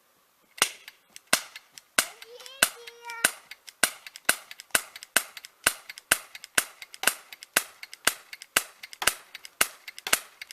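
BB gun fired in rapid succession, about twenty sharp shots at roughly two a second, until the magazine is emptied.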